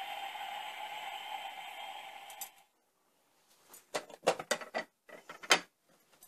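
Plastic toy rocket's wheel gearing whirring and winding down after a push, fading out about two and a half seconds in. Then a short run of sharp plastic clicks as its back hatch is handled and opened.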